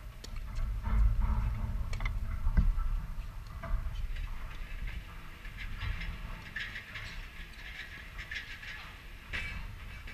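Tennis ball struck by rackets and bouncing on a hard court, heard as a few sharp pops spread through the rally. Wind rumbles unevenly on the camera microphone underneath.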